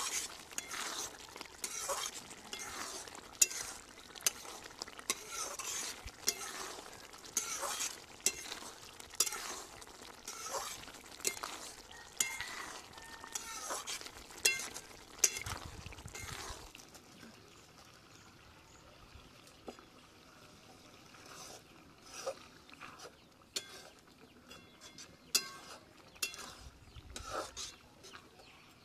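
Metal cookware or dishes being stirred and scraped, with repeated clinks and scraping strokes. They come thick and fast for about the first half, then grow sparser and quieter.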